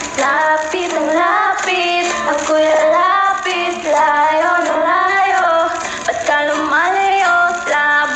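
A woman and a girl singing a karaoke song over a recorded backing track, in phrases of held, gliding notes.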